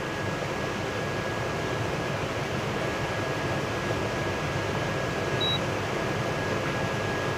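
Steady fan-like background noise with a thin steady whine. About five and a half seconds in, one short, faint high beep: the induction cooktop board's buzzer sounding at power-up as supply reaches the board and its display comes on.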